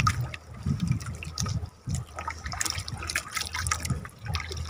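Sea water sloshing and trickling, with an uneven low rumble.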